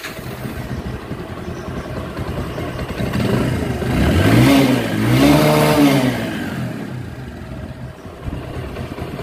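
Old motorcycle engine idling, then revved up twice in quick succession about four seconds in and settling back to idle. It runs without any rattle, its tappet clearances freshly set and its fuel mixture adjusted.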